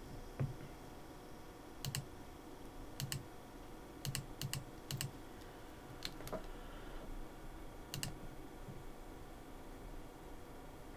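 Scattered clicks from a computer keyboard and mouse, a few at a time with short gaps, some in quick pairs; they stop about eight seconds in.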